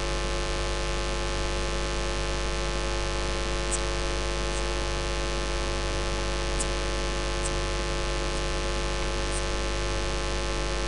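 Steady electrical mains hum and static from a microphone and sound system, with a few faint high ticks.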